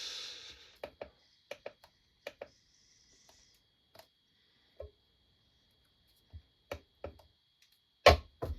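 Scattered light clicks and taps of a cordless impact wrench being handled on a weighing scale, with a louder knock near the end.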